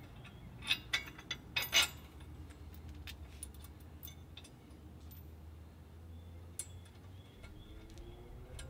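Steel bolts, washers and nylon locking nuts clinking against a steel bracket as they are fitted by hand: a quick cluster of clinks around one to two seconds in, then a few scattered light ticks, over a low steady hum.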